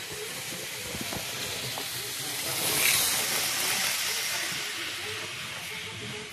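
Model train running on the layout's track: a steady hiss that swells as it passes close, about three seconds in, then eases off.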